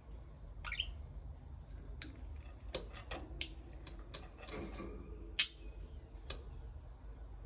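Budgerigars giving short, sharp chirps at irregular intervals, with a quick run of them around four to five seconds in and one louder chirp just after.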